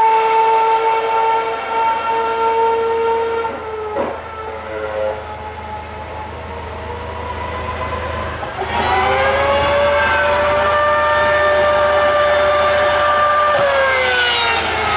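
2013 Formula One cars' 2.4-litre V8 engines running at high revs as they pass: a high-pitched wail that drops in pitch and fades about four seconds in. A second car rises in level a little past halfway, holds a steady pitch, then falls in pitch near the end.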